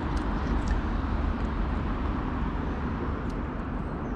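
Steady outdoor background rumble and hiss, heaviest in the low end, with a few faint clicks.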